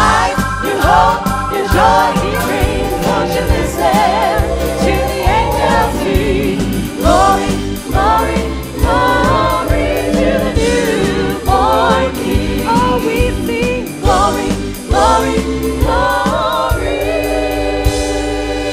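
Live worship band with several singers performing a gospel-style song over electric guitar and keyboard. The voices waver in pitch through the phrases, then settle on a long held chord near the end.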